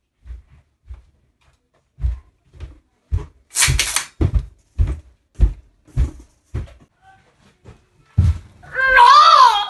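Footsteps thumping across a floor, about two steps a second, with a short hiss a few seconds in. Near the end comes a loud, wavering, high-pitched cry.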